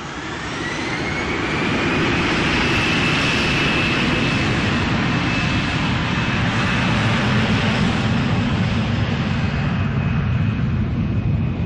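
Jet aircraft engines running at high power, with a deep rumble. A whine rises in pitch over the first two seconds, then holds steady.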